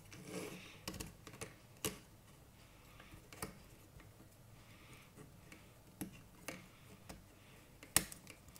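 Scattered small plastic clicks and light knocks as a mini quadcopter drone's plastic body is handled while its battery is fitted in; the sharpest click comes near the end.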